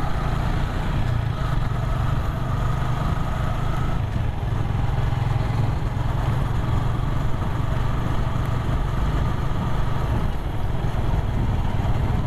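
Motorcycle engine running steadily at cruising speed, heard from the rider's seat.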